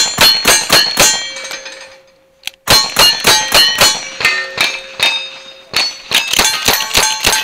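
Rapid gunfire from single-action revolvers, each shot followed by the ring of struck steel targets. A quick string, a pause of about a second and a half, a second string, then faster shots from a lever-action rifle near the end, with the steel ringing on each hit.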